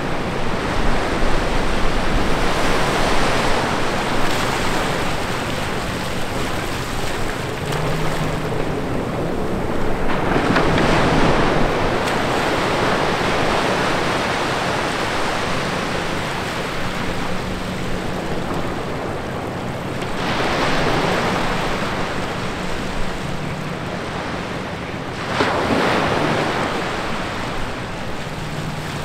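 Small ocean waves breaking and washing up a sand beach between rocks: a steady rush of surf that swells four times as waves come through.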